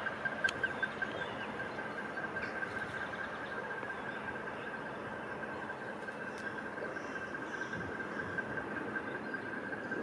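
Steady background hum of distant traffic, with a constant thin high-pitched whine over it and a couple of faint ticks; no woodpecker call.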